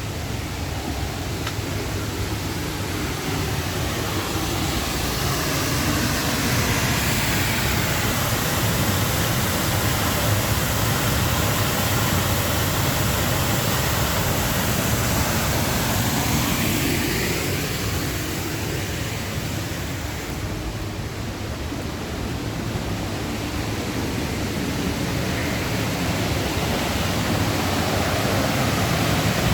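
Upper Düden Waterfall rushing in a steady, loud wash of noise, swelling a little after several seconds, easing around the two-thirds mark, then building again.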